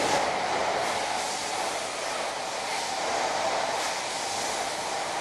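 E4 series Max double-decker Shinkansen moving past along the platform as it departs: a steady rushing whir, strongest in the mid range, with a light hiss above.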